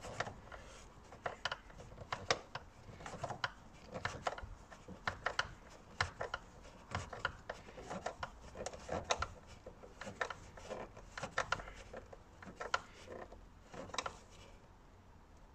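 Screws being driven into a plastic air filter housing cover with a hand tool: irregular small clicks and scraping, thinning out near the end.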